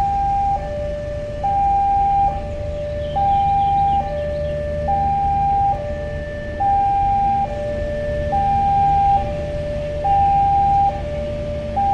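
Railway level-crossing warning alarm sounding a steady high-low two-tone, each note held just under a second, over the low rumble of passenger coaches rolling slowly past.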